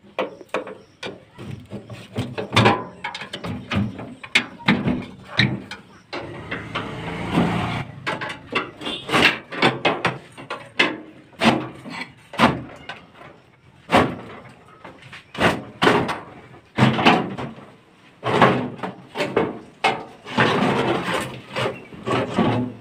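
Irregular knocks and clanks, with a few longer stretches of scraping, from an e-rickshaw's sheet-metal seat box and body being worked loose and lifted out by hand.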